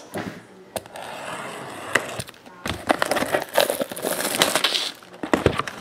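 Plastic shrink-wrap on a sealed trading-card box crinkling and crackling under the fingers as the box is handled and turned over, in irregular bursts of small clicks and rustles.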